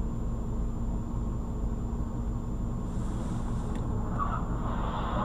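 Steady low rumble of a car running, heard from a dashcam inside the cabin.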